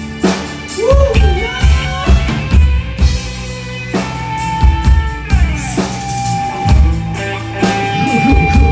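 Rock band playing an instrumental passage live: a drum kit with heavy bass-drum hits under lead guitar notes that bend about a second in, then are held and sustained.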